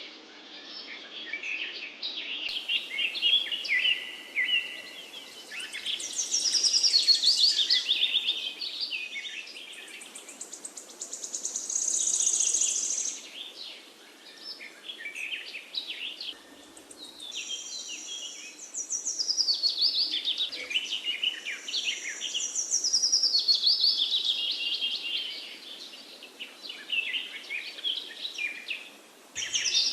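Several songbirds chirping and singing in overlapping phrases that swell and fade every few seconds, over a faint steady hiss.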